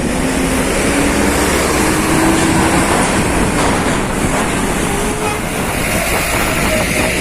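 A heavy vehicle rolling past with a loud, steady rumble and clatter, with faint engine tones rising and falling.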